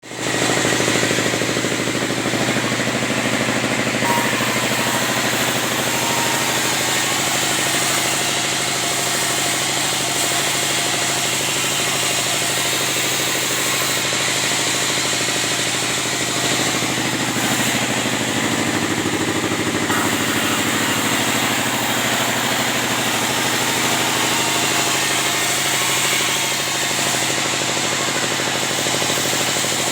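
Band sawmill running steadily at a constant level, its engine and blade going without pause while sawing timber into 5x5 beams.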